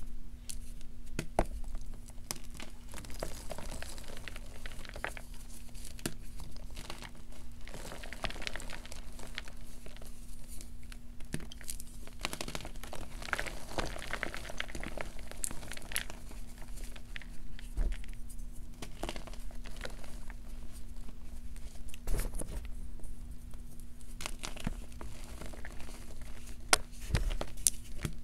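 Blocks of BSN and Chalkness gym chalk crushed and crumbled by hand into powder: a continuous crunching and crumbling with many small crackles and sharper cracks as pieces break.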